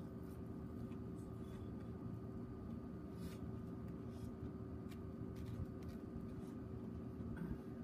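Faint steady low hum with a few scattered light clicks and crackles from a charcoal-fired shichirin grill and the metal tongs being worked over it.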